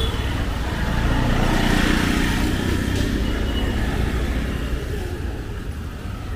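Busy street traffic: a steady rumble of engines and tyres, with one vehicle passing close about two seconds in.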